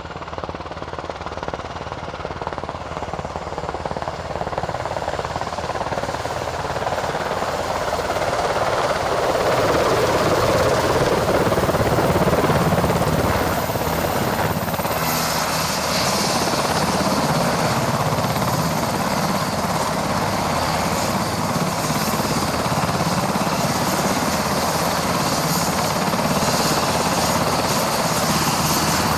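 UH-60 Black Hawk helicopter's rotors and turbine engines running, growing louder over about the first ten seconds and then steady, with a thin high turbine whine joining about halfway through.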